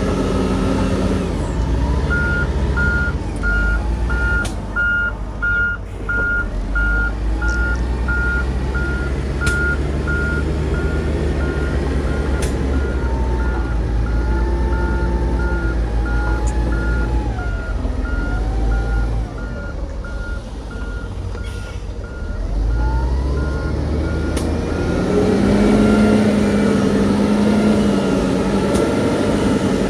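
A heavy machine's reversing alarm beeps steadily at one pitch, a little more than once a second, over the low running of diesel engines. The beeping stops near the end as an engine revs up.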